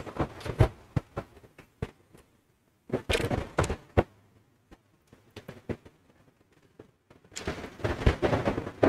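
Microphone handling noise: irregular knocks and thumps with rustling as a microphone is picked up and adjusted. There is a denser flurry about three seconds in and continuous rustling from near the end.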